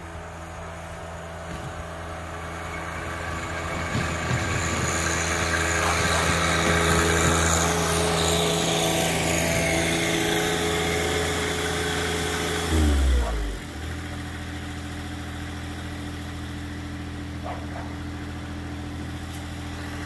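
John Deere 1025R compact tractor's three-cylinder diesel engine running while it plows snow. It grows louder over the first several seconds, drops in pitch about thirteen seconds in, then runs on steadily at a lower level.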